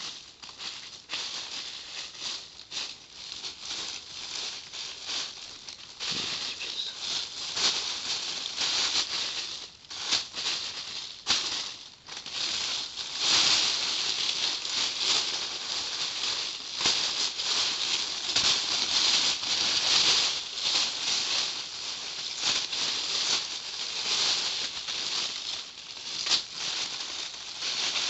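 Small plastic toy pieces rattling and clattering as someone rummages through them by hand, looking for a missing action-figure accessory. A steady stream of light clicks and rustles that grows busier and louder about thirteen seconds in.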